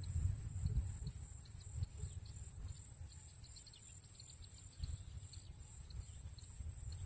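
Rural outdoor ambience: a steady high-pitched insect drone that pulses several times early on, scattered short bird chirps, and low wind rumble on the microphone.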